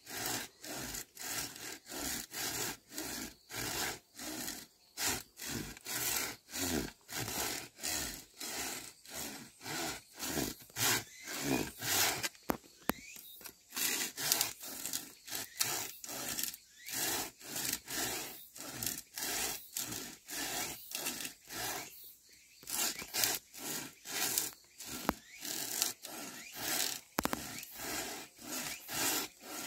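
Hand pruning saw with a curved toothed blade cutting through a thick green bamboo culm in steady back-and-forth strokes, about two a second.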